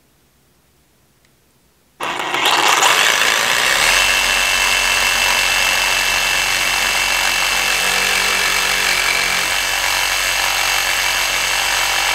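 DeWalt DCS382 cordless reciprocating saw with an 18 TPI metal blade cutting through a steel bolt flush with a wooden board. It starts suddenly about two seconds in and runs at a steady pitch and speed as the blade saws through the bolt.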